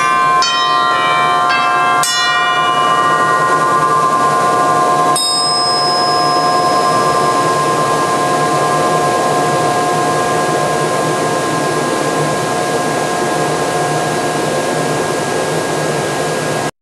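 Theatre organ playing its tuned percussion: a quick run of bright, bell-like notes, then a held chord that rings on and slowly dies away, with another bright strike about five seconds in. A steady hiss of the organ's wind runs underneath.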